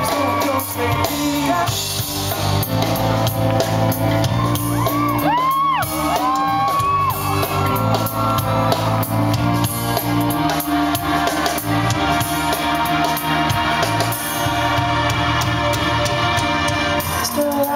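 Live pop-rock band playing, with drums, guitar and a male lead vocal, heard from within the crowd. Fans shout and whoop over the music, most clearly about five to seven seconds in.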